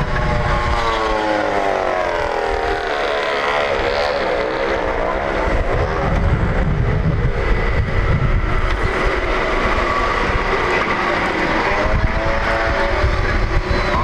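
A steady motor drone whose pitch slowly rises and falls, over a low rumble.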